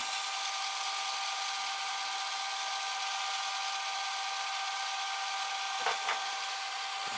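The tape mechanism of an opened Philips DVD755VR VCR running a VHS cassette: a steady hiss with a few faint, steady high whines, and a couple of light clicks about six seconds in. The tape is winding evenly without stuttering.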